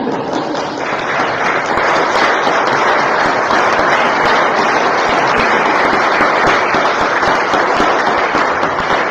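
Congregation applauding: many people clapping in a dense, steady patter that thickens about a second in.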